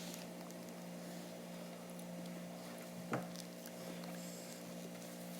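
Quiet room tone with a steady low hum, and a single faint tap about three seconds in.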